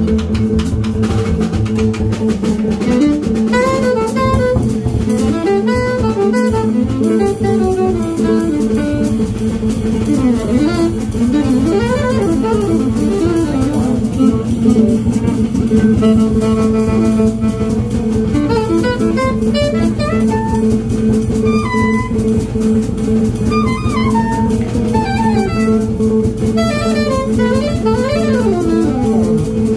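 Live jazz group of guitar, saxophone, double bass and drum kit playing, with quick rising and falling melodic runs over a steady held drone.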